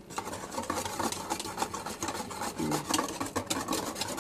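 Wire whisk scraping and clicking rapidly against a metal saucepan while stirring a thick, boiling chocolate mixture.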